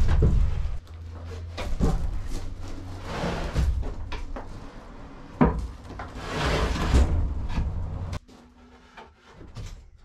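Wooden bench sections knocking and scraping against each other as they are lifted and set in place, with a heavy thump right at the start and a sharp knock about five seconds in. The sound drops away abruptly about eight seconds in.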